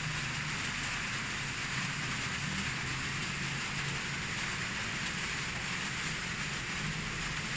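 Steady hissing background noise with a faint low hum underneath, unchanging throughout.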